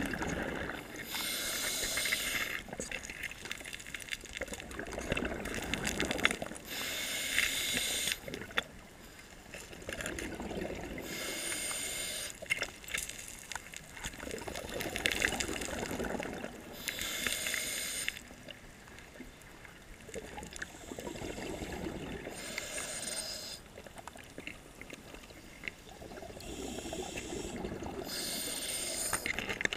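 A scuba diver breathing through a regulator underwater: a regular cycle of inhaling and then exhaling, each exhale a rush of bubbles, about six breaths roughly five seconds apart.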